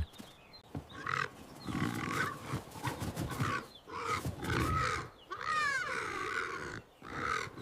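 A horse making a series of short, rough, breathy calls, with one higher falling call about five and a half seconds in.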